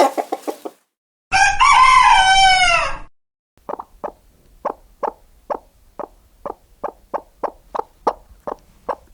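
Rooster crowing once for nearly two seconds, the call falling in pitch at its end, followed by a steady series of short clucks, about three a second.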